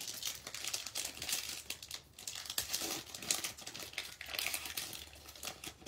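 Foil trading-card pack wrappers crinkling irregularly as they are handled in the hands.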